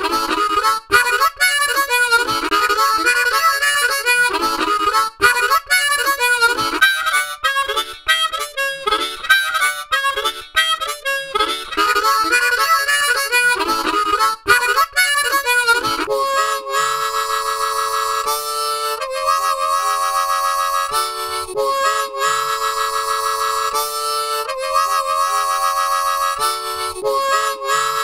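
Harmonica playing: quick runs of notes with bent, wavering pitch, then from about halfway, longer held chords.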